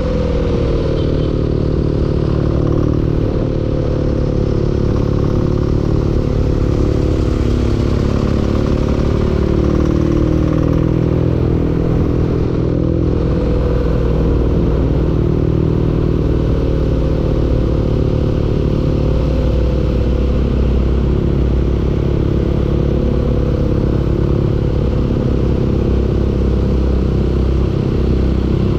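Engine running steadily with a knocking clatter, a sign of an engine knock; its speed eases down slightly in the first few seconds, then holds.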